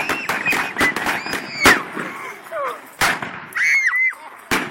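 A gunfight of blank-firing guns: a string of sharp shots, irregularly spaced, the loudest about two, three and four and a half seconds in, mixed with shouting voices.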